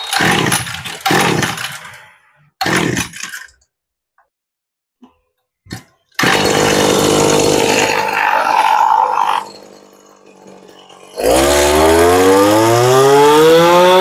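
Kawasaki TG two-stroke brushcutter engine being pull-started: three pulls of the recoil starter, then it catches about six seconds in and runs for a few seconds before dying down almost to nothing. About eleven seconds in it fires up again and revs up in a steadily rising whine; the seller later judges that this engine does not run well.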